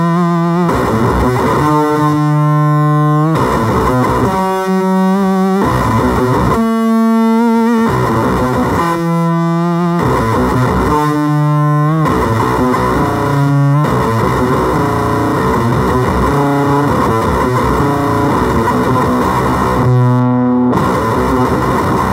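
Electric guitar played through a FOWL Sounds Octagram Fuzz pedal: heavily fuzzed single notes, each held for a second or so with short breaks between, then a stretch of busier, denser playing before one last held note near the end.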